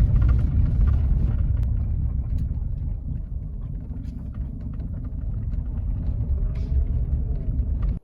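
A car driving: a steady low rumble of road and engine noise with small scattered knocks. It dips somewhat in the middle, builds again, and cuts off abruptly at the end.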